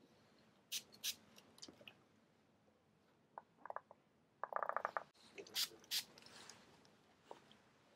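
Suction-cup ECG limb electrode pressed onto the skin, its rubber cup giving one rapid rattling squeak about halfway through. Short hisses of contact spray from an aerosol can come around a second in and again near six seconds.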